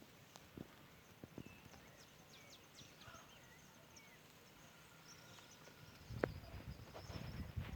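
Quiet outdoor background with faint, scattered high chirps and clicks, then a run of irregular low knocks and thumps starting about six seconds in.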